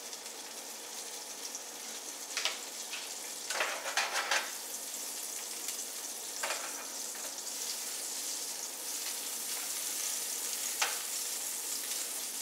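Schmaltz (rendered chicken fat) sizzling in a hot nonstick frying pan, a steady sizzle that grows slowly louder as the fat heats. A few short knocks and scrapes of a utensil against the pan break in, the loudest about two and a half and four seconds in.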